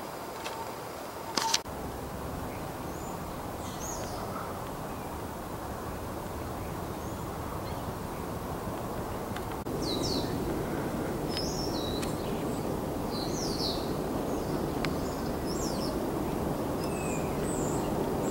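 Steady outdoor background rumble with many short, high bird calls and chirps, mostly in the second half. A sharp click comes about a second and a half in.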